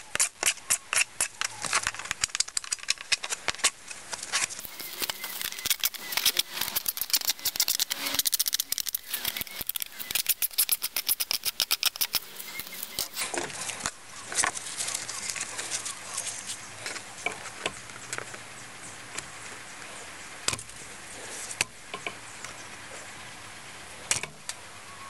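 Shears snipping along the cut edges and corners of a plastic rain gutter, trimming them smooth. There is a fast run of snips for about the first dozen seconds, then slower, scattered single snips.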